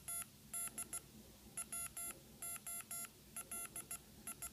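Wand Company Tenth Doctor sonic screwdriver universal remote beeping out a Morse code message: a string of short and long electronic beeps in groups with pauses between. It spells out one of the Tenth Doctor's sayings in the remote's FX mode.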